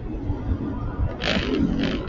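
Low rumble of street traffic. From about a second in, broken bursts of hissing noise come in as the camera's vehicle starts moving.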